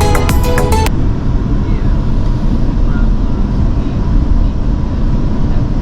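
Background music cuts off about a second in. It gives way to the steady low rumble of a GO Transit commuter train in motion, with a faint steady tone above it.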